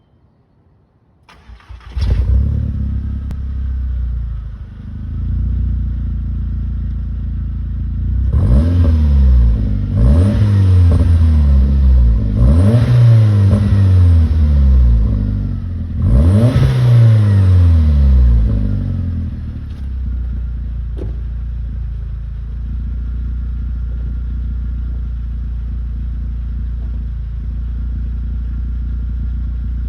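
MK4 Golf GTI's 1.8-litre turbo four-cylinder (AGU engine, K03 turbo, pod air filter, 3-inch exhaust) starting up about a second and a half in and settling to idle. Around the middle it is blipped four times, each rev rising and falling in pitch with turbo hiss and flutter as the throttle closes. It then idles steadily again.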